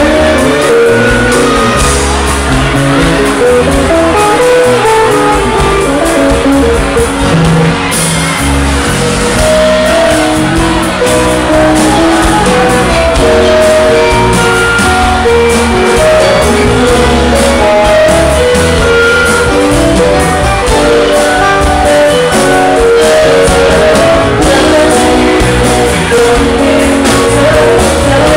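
Live rock band playing: a singer singing into a microphone over strummed acoustic guitar, electric bass and drums, loud and steady throughout.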